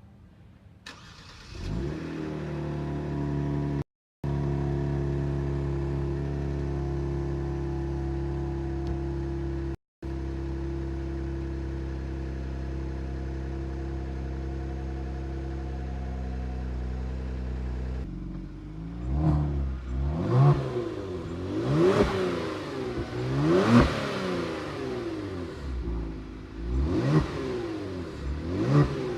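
Kia Stinger GT's 3.3-litre twin-turbo V6, fitted with aftermarket downpipes on an otherwise stock exhaust, cold-starting about a second in and settling into a steady fast idle, with two brief dropouts in the sound. About eighteen seconds in the idle changes to a series of free-revs, about six sharp blips that rise and fall.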